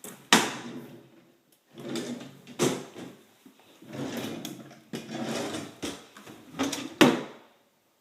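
A run of knocks and scraping slides indoors, like drawers or cabinet doors being pulled open and pushed shut, with the sharpest knocks about a third of a second in and about seven seconds in.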